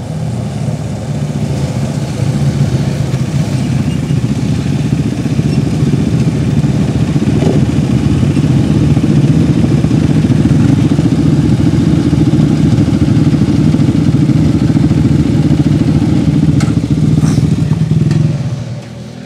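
Several sport quad ATV engines running close by, a loud steady low engine sound that builds over the first couple of seconds as the quads pull up and then holds at idle. The sound drops off sharply near the end.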